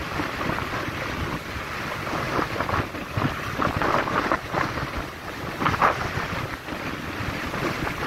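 Waves breaking against a concrete pier and washing over it, with gusty wind buffeting the microphone. There is a louder splash about halfway through and another about two seconds later.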